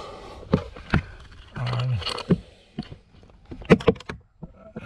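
A few sharp clicks and knocks of hands and objects handling plastic dashboard parts, with a cluster of quick knocks near the end and a short low hum of voice in the middle.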